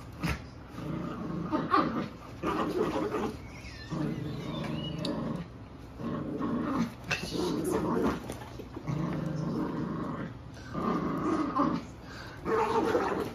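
Two puppies growling in play while tugging a toy between them, in short bouts of about a second, again and again with brief pauses.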